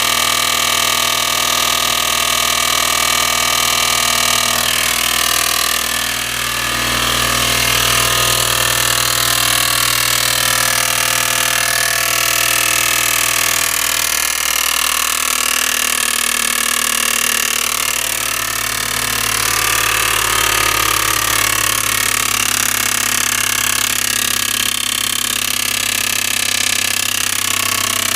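Audi A6 2.7T twin-turbo V6 running with its auxiliary belt off, with a rattling grind from the back of the engine. The grind is an engine backplate bolt that has backed out and is rubbing on the back of the flywheel.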